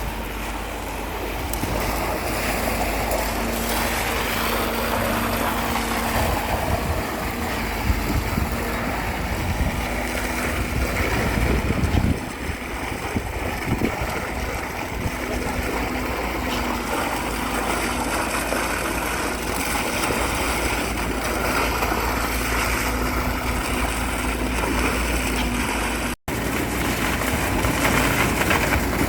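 An engine running steadily under a wash of broad noise, with a faint constant hum. The sound drops out abruptly for an instant near the end.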